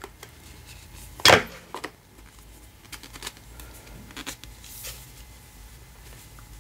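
Hard plastic tubes and elbow end-pieces of a cross-stitch scroll frame being handled and set down on a desk: one sharp plastic click about a second in, then a few lighter knocks and a soft rustle.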